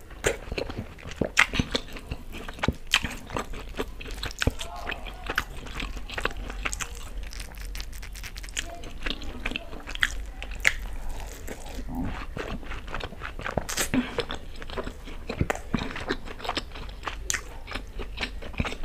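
Close-miked eating of a syrup-soaked sponge rasgulla: biting and chewing, with frequent sharp mouth clicks and smacks at an uneven pace.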